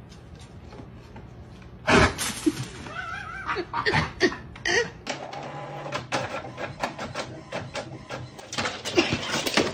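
A sharp knock about two seconds in and a few short wavering animal cries, then from about halfway a printer running: a steady low hum with rapid clicking.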